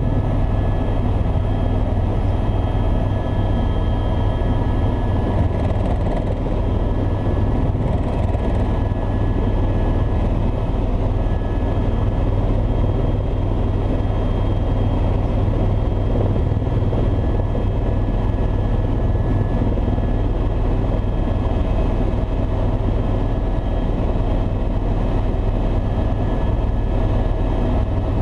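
Tour helicopter in steady flight: a constant loud low drone from the rotor and engine, with a few steady high whining tones above it that hold without change.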